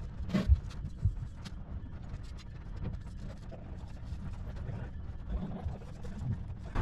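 Scattered light clicks and knocks of hands and tools working on fittings in a diesel engine bay, over a low steady rumble; the sharpest knock comes about half a second in.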